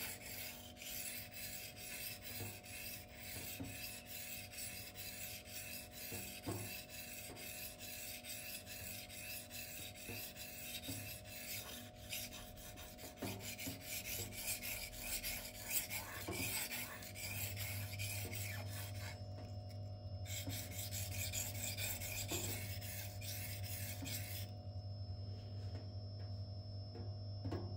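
Steel knife blade (M390) stroked again and again across a Shapton 1000-grit whetstone, a steady rhythmic scraping that stops shortly before the end.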